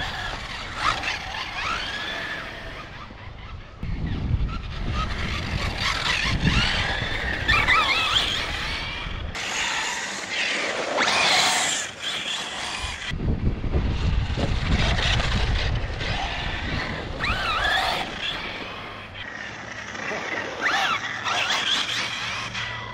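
Radio-controlled cars driving fast on asphalt: their motors whine, rising and falling in pitch with the throttle, over tyre noise on the tarmac.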